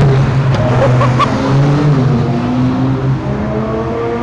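Ferrari sports cars driving past one after another, their engines running with the pitch rising and falling as they come through. Two short sharp clicks sound about half a second and a second in.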